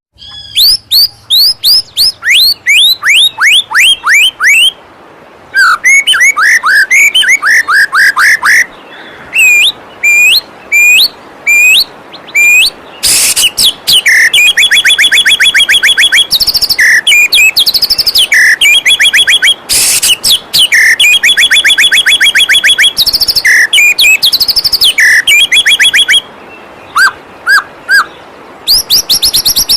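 White-rumped shama singing loud, varied phrases: a run of falling whistles, then fast rattling trills and sharp chirps repeated in bursts. A steady rush of flowing waterfall water runs underneath.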